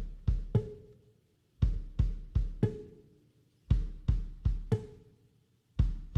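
Background music: a drum-kit beat of short groups of kick and snare hits, the pattern repeating about every two seconds with brief gaps between.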